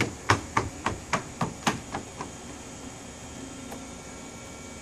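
A small child's footsteps running across a wooden deck: quick knocks, about four a second, that grow fainter and stop about two seconds in.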